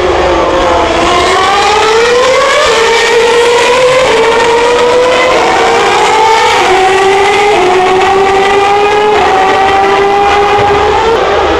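Formula 1 car's 2.4-litre V8 engine at high revs. The note falls briefly, then climbs in steps through several upshifts as the car accelerates away, the pitch dropping back at each gear change.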